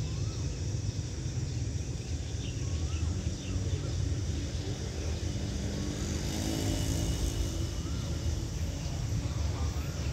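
Steady low engine rumble that swells briefly midway, with small birds chirping over it.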